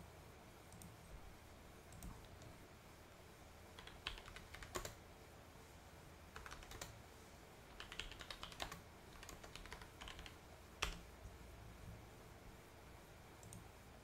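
Faint keystrokes on a computer keyboard in short scattered bursts, with one sharper single click about eleven seconds in.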